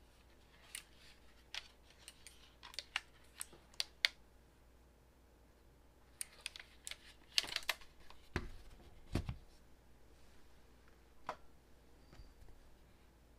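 Keys of an RK Royal Kludge RK925 foldable mechanical keyboard being pressed, single clicks and short uneven runs of keystrokes. Two low thumps come about two-thirds of the way in.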